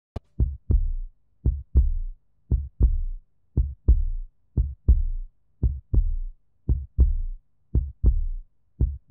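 Heartbeat sound effect: deep double thumps, lub-dub, about once a second, starting suddenly after a short click just after the start.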